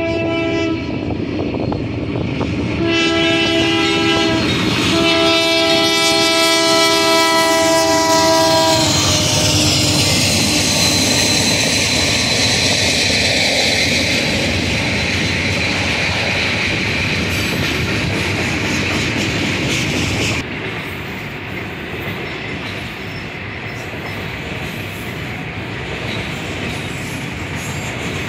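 Freight train locomotive sounding its multi-chime air horn in several blasts for a grade crossing, the last one long and cut off about nine seconds in. The freight cars then roll past with a steady rumble and clickety-clack of wheels over rail joints, with a thin high wheel squeal for a few seconds after the horn stops.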